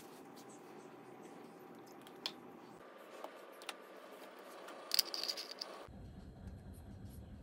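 Small clicks and metal-on-metal rattles as a 2-cup Bialetti Brikka moka pot is handled and its aluminium upper chamber is fitted onto the base. A few single clicks come first, and the loudest cluster of rattling clicks comes about five seconds in.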